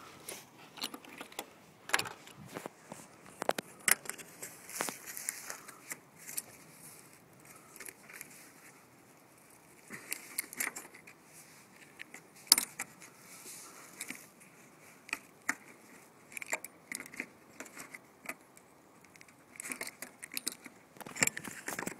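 Small metal parts of a folding knife clicking and rattling irregularly as it is handled and worked on by hand.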